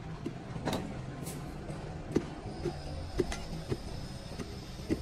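Irregular dull knocks and clatter of cut lengths of thick scrap cable being tossed into a wheelbarrow and handled, about half a dozen over a few seconds, over a steady low hum.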